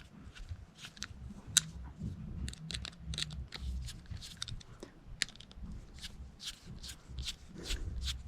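Phillips screwdriver working the small cover screws on a backpack blower's carburetor, with many small irregular clicks and scrapes of metal parts being handled.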